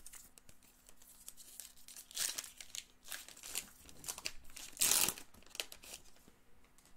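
Foil wrapper of a Topps Gold Label baseball card pack being torn open and crinkled by hand, in several bursts of crackling, the loudest about five seconds in.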